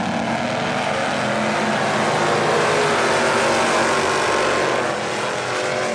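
Dirt-track stock car engines running as the cars race around the oval. The sound builds to a peak about three to four seconds in as cars pass, then drops off near the end.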